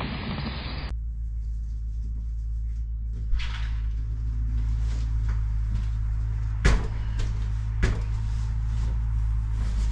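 A back door being opened and someone coming in: a few sharp clicks and knocks from the door latch and door, the loudest about two-thirds of the way through, over a steady low hum. The first second is rough outdoor noise from a security camera's microphone.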